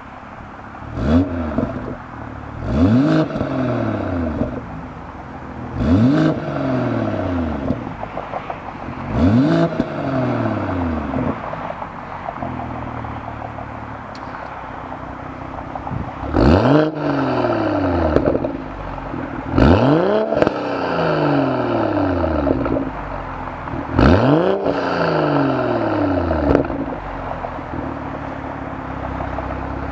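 BMW M240i's B58 3.0-litre turbocharged straight-six, breathing through a Fi Exhaust valvetronic catback and catless downpipes, idling and free-revved seven times. Each blip rises sharply and falls back to idle over a second or two.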